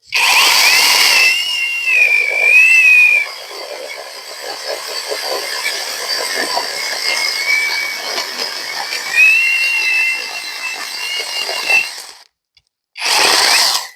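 Battery-powered electric chainsaw running and cutting through a log, a high steady motor whine with chain-on-wood noise. The whine sinks lower while the chain is loaded in the wood, and the saw stops about twelve seconds in, then runs again briefly near the end.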